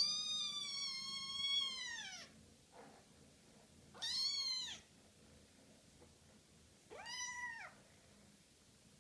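Kitten meowing three times: one long, high meow, then two shorter ones a few seconds apart.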